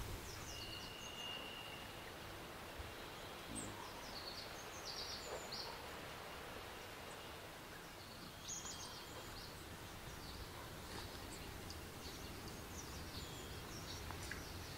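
Faint outdoor ambience: scattered short, high bird chirps over a soft background hiss, with one thin held whistle lasting about a second and a half just after the start.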